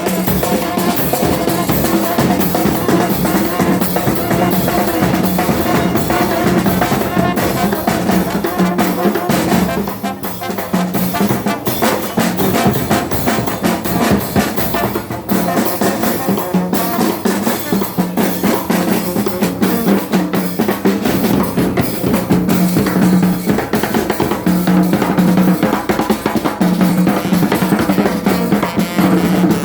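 Chirimía chocoana band playing, with snare drum and bass drum keeping a dense beat under held notes from the wind instruments.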